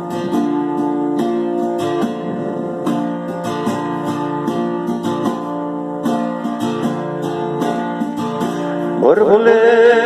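Acoustic guitar strumming chords as a song's instrumental intro. Near the end a singing voice comes in on a rising note that then wavers.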